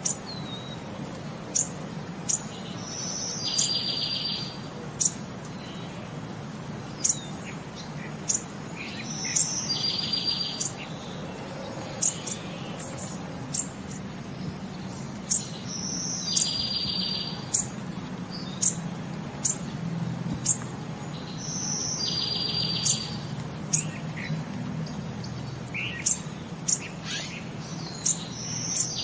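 Bird chirps: sharp high chirps about once a second and a buzzy trill about a second long, the same pattern repeating about every six seconds as a looped background track over a low steady hum.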